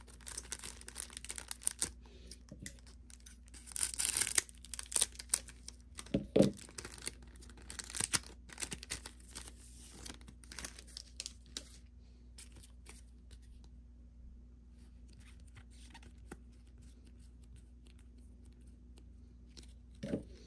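Foil wrappers of Pokémon card booster packs being torn open and crinkled, in bursts over the first dozen seconds, with a brief low sound about six seconds in. After that, only faint scattered clicks.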